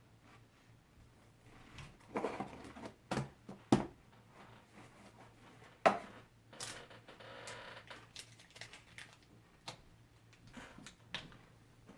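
Chewing a big mouthful of stacked potato crisps (Pringles): irregular crunches and crackles, the sharpest about two, four and six seconds in, with quieter munching between.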